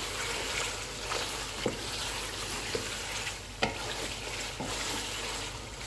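Mutton pieces sizzling in oil in a metal karahi on high heat while a wooden spatula stirs and scrapes them, with a few sharp taps of the spatula against the pan. This is the bhuna stage, the meat fried down until the oil separates from the masala.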